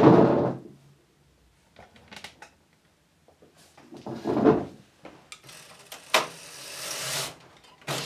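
Domestic knitting machine being worked by hand: a thump at the start and another about halfway, then the carriage sliding along the needle bed for about two seconds, with a sharp click near the end.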